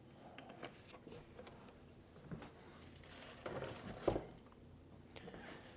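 Faint kitchen handling sounds: soft rustling and crinkling with light clicks, and one sharper knock about four seconds in, as stew meat is readied for coating in flour.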